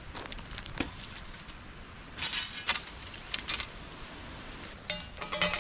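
Metal scrapes and clicks of camp cookware on an iron grill grate over a campfire, ending with a clatter and a short metallic ring about five seconds in as a steel frying pan is set down on the grate.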